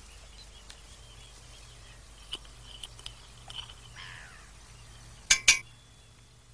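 Small clicks of a metal teaspoon and steel can being handled, ending in two sharp knocks about half a second apart around five seconds in, with birds chirping faintly in the background.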